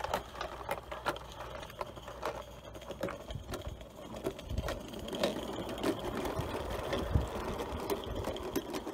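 Small garden-railway model train running: the wheels of the locomotive and coaches clicking and rattling irregularly over rail joints and small-radius points.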